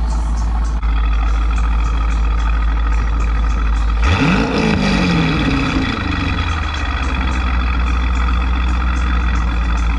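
V8 car engine idling, blipped once about four seconds in: the pitch rises and falls back to idle over about two seconds.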